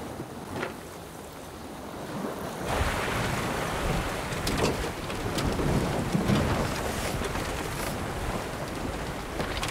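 Wind buffeting an onboard camera's microphone and water rushing along the hull of a 49er skiff sailing fast, with crackles of spray. The rush starts suddenly about two and a half seconds in; before that there is only a quieter wash of wind and water.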